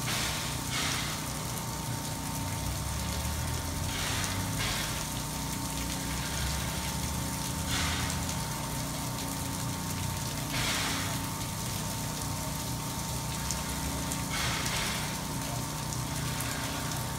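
Stationary AD60-class Beyer Garratt steam locomotive 6029 simmering in steam: a steady low hum under a thin steady whine, with a short hiss of escaping steam about every three to four seconds.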